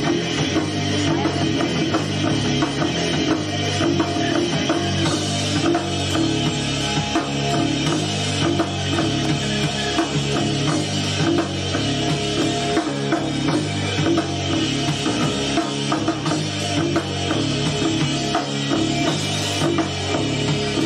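Rock band playing an instrumental passage: drum kit keeping a steady beat under electric bass and electric guitar, with the bass heavy in the mix.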